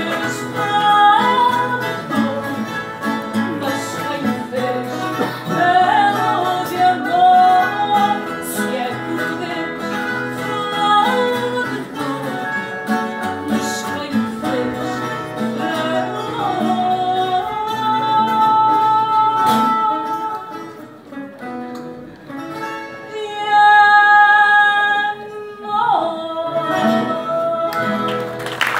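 A woman singing a slow song with long, wavering held notes, accompanied by a plucked acoustic guitar. The song swells to its loudest sustained note a little past two-thirds of the way through, then closes on a last held note.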